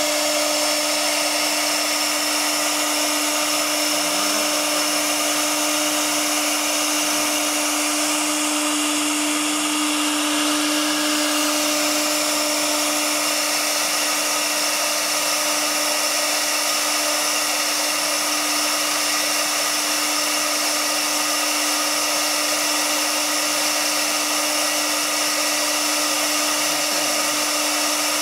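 CNC router spindle running steadily while its engraving bit cuts into MDF board: a constant steady tone over an even hiss.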